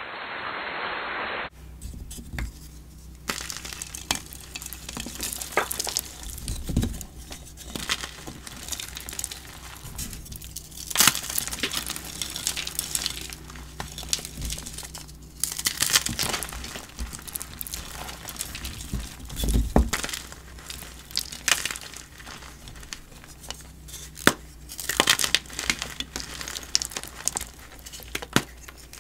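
Blocks of dyed gym chalk crunching and crumbling: an irregular run of dry crackles with a sharper snap every few seconds, as the chalk breaks into powdery pieces.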